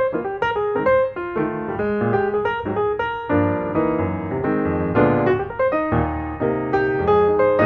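Background music: a piano playing a melody of quick, evenly struck notes over lower chords.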